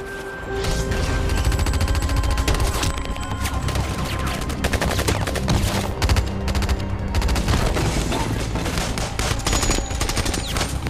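Heavy automatic gunfire: machine-gun and rifle bursts fired in rapid, overlapping strings over a deep rumble. It starts sharply, getting much louder about half a second in.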